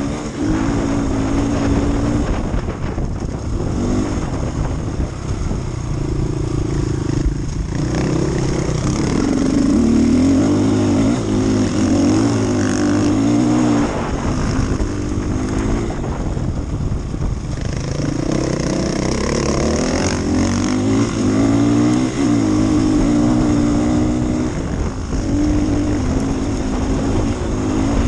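Off-road rally motorcycle's engine heard from on board, the throttle opening and closing again and again, its pitch rising and falling with brief drops as it comes off the gas. Under it, a steady hiss of wind and tyres on loose gravel.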